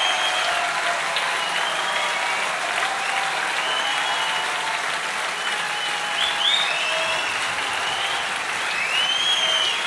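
Concert audience applauding steadily at the end of a show, with high whistles rising and falling now and then.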